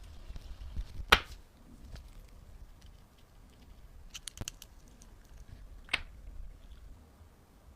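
A few sharp clicks of small hard objects being handled: a loud one about a second in, a quick run of light ticks around four seconds, and another click near six seconds, over a faint low hum.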